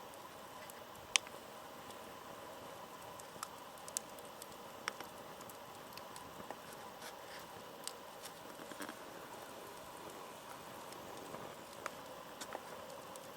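Wood bonfire crackling, with scattered sharp pops, a few seconds apart, over a steady low hiss; the loudest pop is about a second in.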